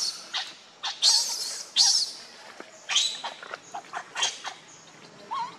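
Infant pig-tailed macaque crying loudly: a rapid string of short, shrill screams, two or three a second, growing weaker near the end. It is the cry of a baby denied milk by its mother.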